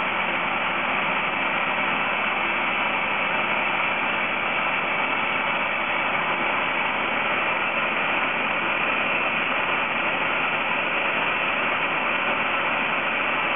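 Small electric food processor running steadily, its motor and blade mixing a chicken meatloaf mixture; an even, unchanging whirring.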